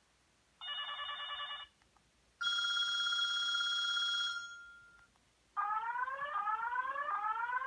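Built-in preset ringtones of a circa-2000 Sanyo 2G bar phone played through its small rear speaker, one after another as the list is scrolled. First a short trilling ring burst, then a single steady electronic tone that fades out, then a run of quickly rising sweeps, about three a second.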